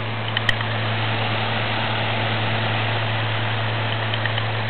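Electric fan running on a high setting: a steady motor hum under even rushing airflow noise. A small click about half a second in.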